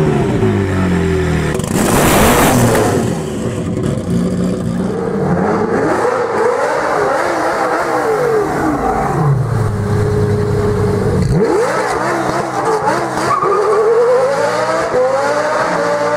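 Supercar engines revving hard, the pitch rising and falling in a series of sweeps, with a loud rushing blast about two seconds in.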